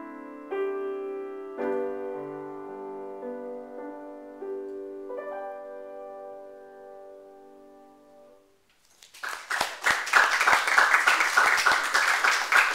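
Grand piano playing the last chords of a piece, which ring and die away to near silence over about eight seconds. About nine seconds in, applause breaks out and keeps going.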